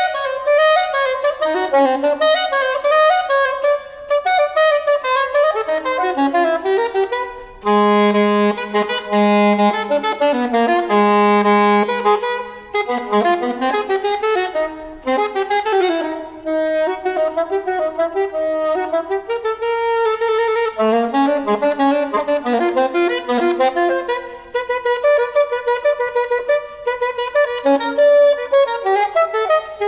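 Solo soprano saxophone playing a contemporary concert piece: quick runs of notes across its range, with a stretch of several pitches sounding at once between about eight and twelve seconds in.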